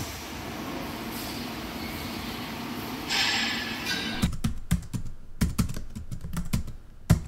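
Computer keyboard typing sound effect: a quick, irregular run of key clicks starting about four seconds in, the loudest near the end. Before it there is only steady background noise.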